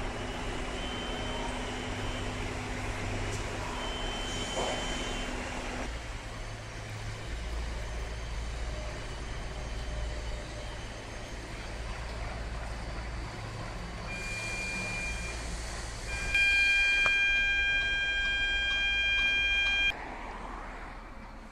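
Steady low engine rumble of vehicles around a building site. There are two short high beeps in the first few seconds. A loud, steady horn-like tone sounds for about three and a half seconds near the end and then cuts off suddenly.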